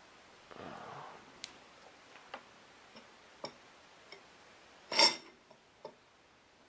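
Scattered light ticks and taps of small hard objects being handled during bench soldering work, with a soft rustle near the start and one louder clack about five seconds in.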